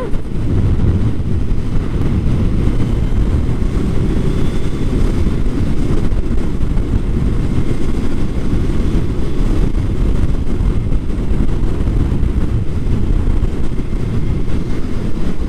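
Suzuki Hayabusa motorcycle cruising at speed: a steady wind rush over the microphone mixed with engine and road noise.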